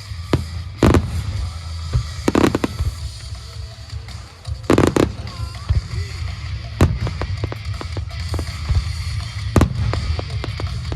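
Aerial firework shells bursting: about five loud booms a second or two apart, with smaller crackles between them, over steady background music.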